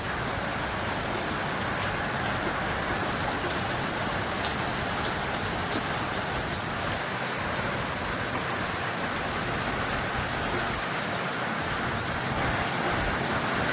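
Steady rain falling, an even hiss with scattered sharp drops striking close by.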